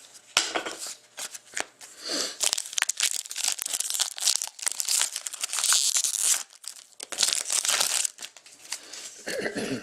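Crinkling and tearing of a trading-card pack wrapper being torn open and handled, a dense crackle with two louder rasps in the second half.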